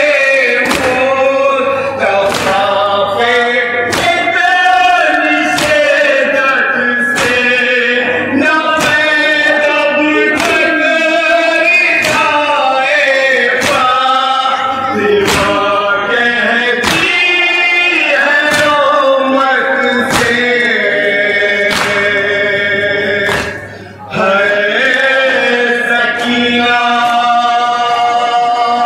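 A chorus of men's voices chanting a mourning lament (noha), over a sharp slap about once a second in the rhythm of matam chest-beating. The singing breaks off briefly a little before the end.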